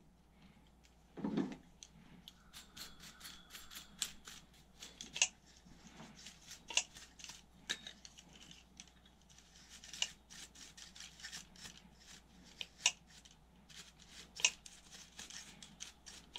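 A brush scrubbing dust from the fan and fins of an Intel stock CPU cooler in a run of short, scratchy strokes. There is a dull thump about a second in.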